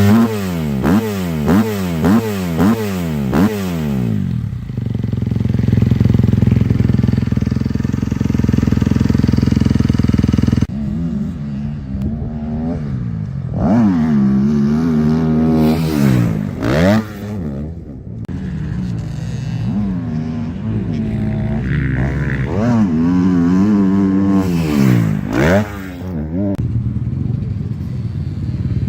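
Kawasaki KX250 motocross bike's single-cylinder four-stroke engine through an aftermarket HGS exhaust, blipped quickly about five times, then idling steadily for several seconds. It is then revved hard a few more times, each rev rising and dropping back to idle.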